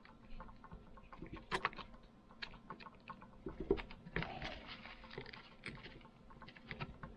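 Small screwdriver clicking and scraping on the screw heads as the fuel pump cover screws of a Tillotson HR76A carburetor are tightened in a crisscross order. Irregular light clicks, with a brief rustle about four seconds in.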